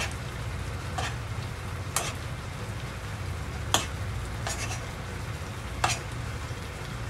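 Eggplant simmering in a soy and oyster sauce in a frying pan, bubbling and sizzling steadily as the sauce reduces, with about five sharp clinks of a metal spoon against the pan as sauce is spooned over.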